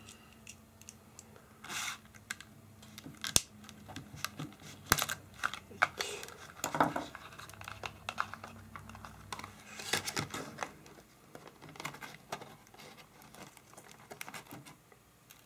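Stiff plastic blister packaging being pried open and flexed by hand: irregular clicks, snaps and crackles, busiest in the middle.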